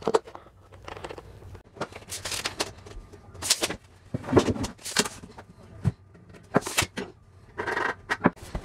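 Scattered knocks, clicks and short scrapes as engineered hickory flooring boards and a metal bevel square are handled and set down on an OSB subfloor.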